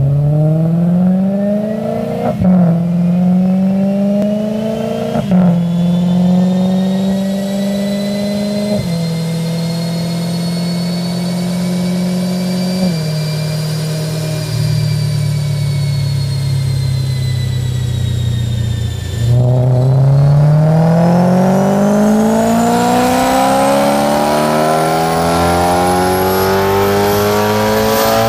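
BMW E92 M3's 4.0-litre V8 through a Dinan X-pipe and Eisenmann Race exhaust, running on a chassis dyno. The engine note steps down in pitch several times as it shifts up through the gears, then about two-thirds of the way in turns louder at full throttle and climbs steadily in pitch, with a thin high whine rising and falling alongside it.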